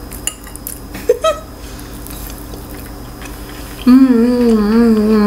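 A few faint clicks of a fork against the bowl while eating. About four seconds in comes a loud, drawn-out closed-mouth 'mmm' hum of enjoyment from a woman, its pitch wavering up and down.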